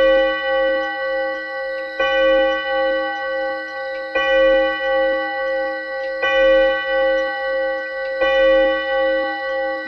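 Mechanical clock striking on its gong: a metallic ringing note struck about every two seconds, each strike ringing on with a slow waver until the next.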